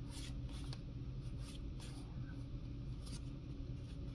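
Pokémon trading cards sliding against one another as a stack is thumbed through card by card: a run of short, soft papery scrapes and flicks, irregularly spaced, over a steady low hum.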